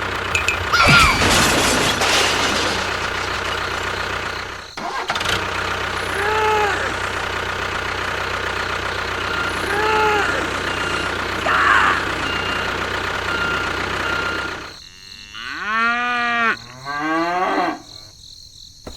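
Cattle mooing: two long moos, each rising and then falling, near the end, with shorter calls earlier. Under the earlier calls a steady mechanical hum from a small engine or motor runs until it drops away just before the moos.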